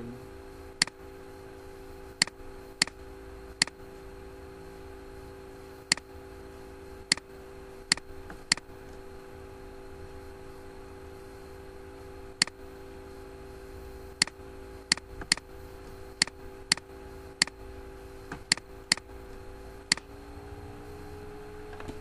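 Computer mouse clicks: about eighteen sharp single clicks at irregular intervals, over a steady low hum.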